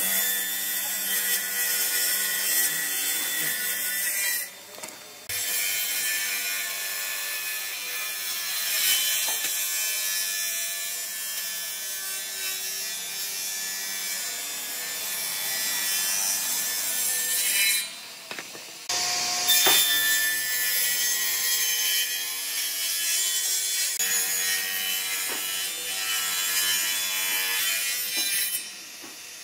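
Table saw ripping weathered reclaimed boat-wood planks: a steady blade-and-motor whine under the hiss of the cut. The sound drops out briefly about four seconds in and again around eighteen seconds.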